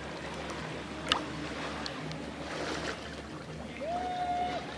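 Shallow seawater sloshing and lapping around a person's legs as they stand in it, with one sharp click about a second in and a brief held steady tone near the end.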